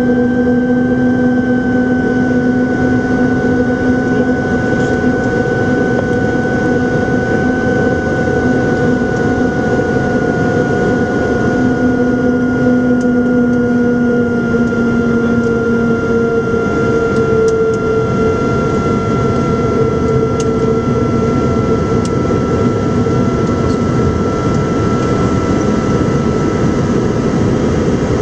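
Flight-deck noise of an Antonov An-225 Mriya on final approach: a steady rush of airflow and the drone of its six D-18T turbofan engines, with a hum running through it that sinks slowly in pitch.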